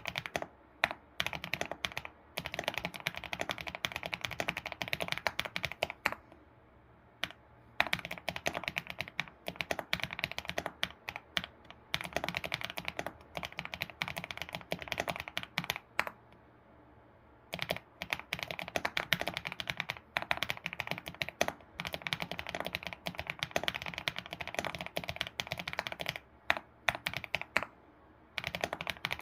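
Typing on an ABKO computer keyboard in fast, steady runs of key clicks. The typing stops briefly three times, about six seconds in, around the middle and near the end.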